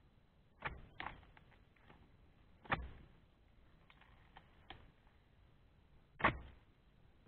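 Oil palm harvesting chisel (dodos) on a long pole jabbed into the frond bases of a young oil palm to cut a fruit bunch: four sharp chopping strikes, spaced irregularly, with a few lighter knocks between.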